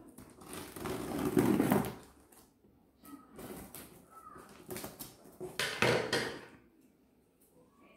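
A cardboard mailing box being opened by hand: scissors cutting into its packing tape and hands scraping and rubbing across the carton, in a series of noisy scrapes. The loudest scrapes come about a second in and again near six seconds.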